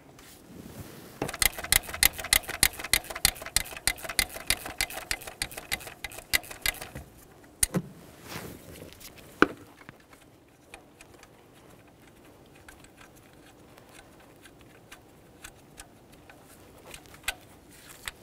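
Ratchet clicking quickly, about five clicks a second, for several seconds while a 10 mm fuel-rail hold-down bolt is backed out, then a couple of single clicks and faint ticks of the tool against metal.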